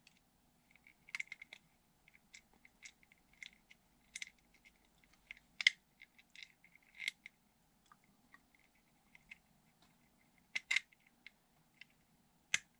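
Scattered light clicks and taps of a small pin being worked by hand into a 3D-printed plastic airsoft pistol grip, with a sharper click about halfway and two more near the end.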